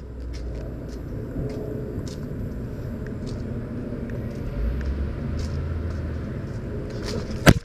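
Road traffic going past, a steady low rumble of car noise. About seven and a half seconds in there is one sharp knock, the loudest sound.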